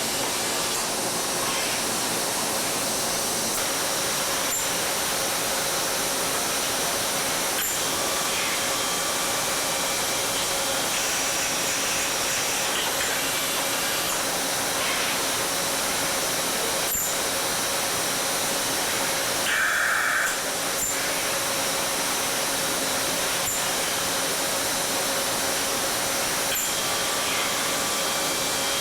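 Welding arc on an exhaust pipe: a steady sizzling hiss with a few sharp clicks along the way.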